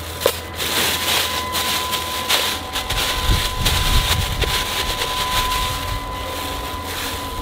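Clear plastic bag crinkling and rustling as it is handled and pressed into a hole in loose dirt, with a low rumble about halfway through.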